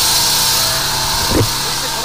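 High-pressure drain jetter running steadily: its engine and pump hum under a strong hiss. A short thump comes about one and a half seconds in.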